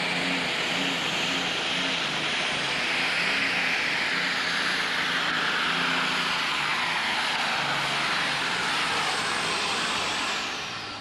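Turbocharged diesel pulling-tractor engine at full throttle under load as it drags the weight sled, with a loud high turbo whine over the engine's blare. Near the end the sound drops and a high whine falls in pitch.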